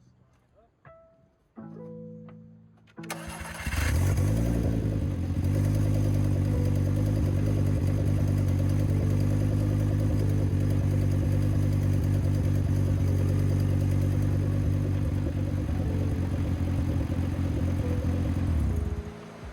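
VW 07K 2.5-litre five-cylinder turbo engine starting about three seconds in, catching with a short rise, then idling steadily until it is switched off near the end. It is not running very well, which the owner thinks may be because the alternator is not putting out.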